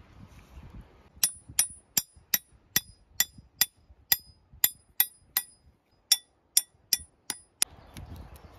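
A run of about seventeen sharp, ringing metallic clicks, two or three a second, with a brief pause partway through.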